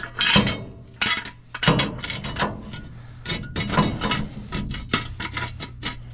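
Steel ratcheting jack stand clinking and clicking as it is set under the axle and its toothed column is pulled up, the pawl clicking over the ratchet teeth.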